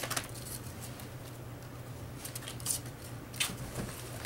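A few light clicks and rustles of sneakers being handled, over a steady low hum.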